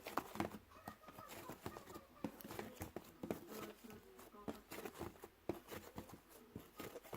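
Irregular small clicks and taps, like objects being handled, with faint voices in the background.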